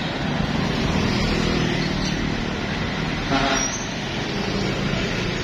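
Road traffic: a motor vehicle's engine runs close by, swelling and then easing, with a short horn toot a little over three seconds in.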